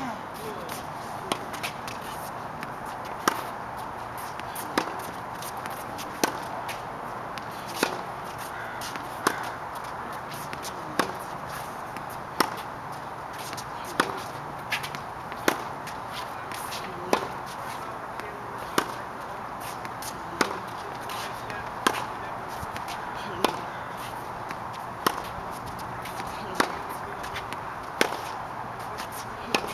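Tennis racket striking tennis balls in a steady drill, a sharp pock about every second and a half, with fainter ball bounces in between.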